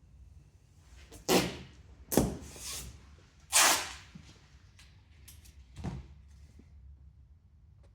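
Masking tape being pulled off its roll in three short, noisy strips within about two and a half seconds, followed by a softer one a couple of seconds later.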